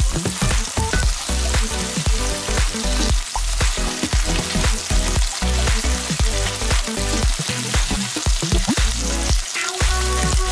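Tofu slices sizzling steadily as they fry in oil in a pan, with a wooden spatula turning them over, over background music with a steady beat.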